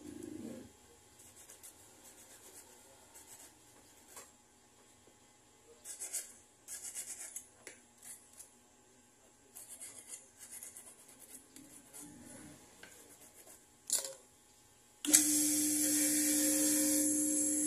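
Scattered light scraping strokes of a small hand file on a gold ring. About fifteen seconds in, a jeweller's bench motor switches on suddenly, much louder, and runs with a steady hum and hiss.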